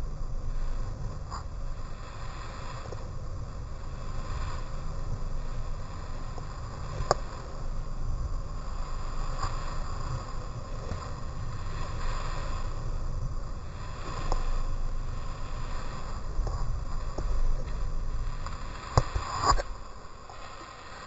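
Sportfishing boat underway: a steady low rumble with a hiss of water and wind over it, and a few sharp knocks, one about a third of the way in and a couple near the end.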